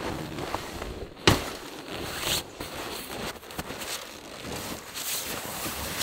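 Rustling and handling noise with scattered small clicks, and one sharp thump about a second in.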